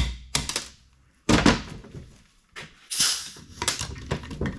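Metal parts of a Ford FE cylinder head's valve train, such as valve springs and retainers, knocking and clicking against each other and the bench as they are handled. There are several sharp knocks, the loudest about a second and a half in, a short scrape about three seconds in, and a quick run of small clicks near the end.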